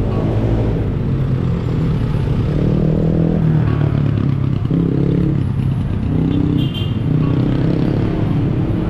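Street traffic: car and motorcycle engines running, their pitch shifting as they move.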